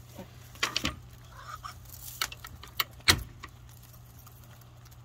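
Hens pecking at feed in a coop: a scattering of short, sharp clicks and taps, with one louder knock about three seconds in.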